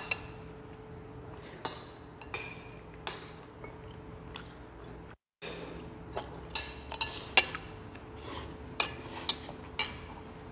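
Metal spoons and forks clinking against ceramic bowls and plates during a meal: scattered sharp clinks, more frequent in the second half, over a faint steady hum. The sound cuts out completely for a moment about five seconds in.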